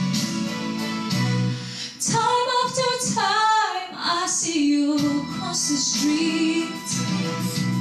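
A young female singer performing over instrumental accompaniment: the accompaniment plays alone for the first couple of seconds, then she sings a long, wavering run of about three seconds.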